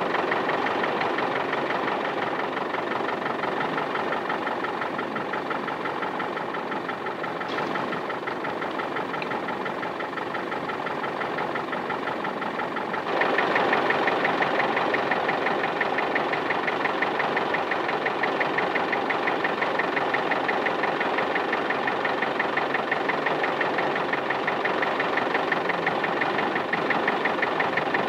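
Tractor engine running steadily with a fast, even pulse, getting louder about halfway through.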